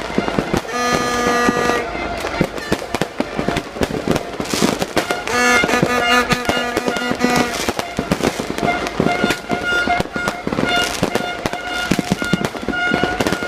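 Fireworks bursting in quick, dense succession with crackling, over music with held notes and later repeated short notes.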